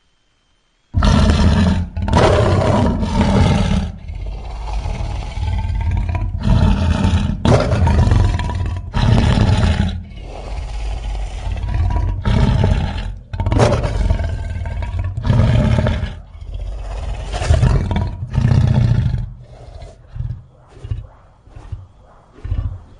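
Giant piranha creature sound effect: a string of loud monster roars and growls starting about a second in. In the last few seconds they break into short, choppy snarls.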